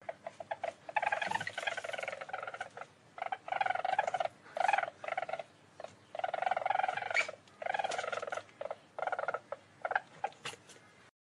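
Weasel calling in a run of rapid, pulsing chattering trills, bursts of up to about two seconds broken by short pauses.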